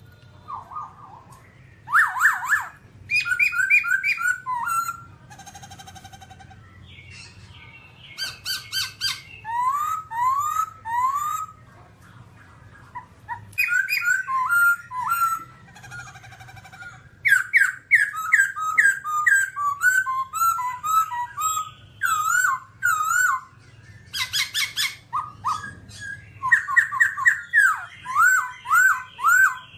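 Black-throated laughingthrush singing a loud, varied song: phrases of quickly repeated sweeping whistled notes, broken by short pauses.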